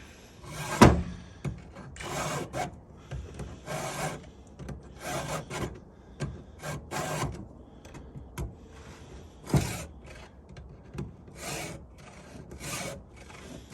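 Stihl 2-in-1 file rasping across chainsaw chain cutters in separate push strokes, about a dozen, unevenly spaced, two of them (about a second in and near ten seconds) sharper and louder than the rest.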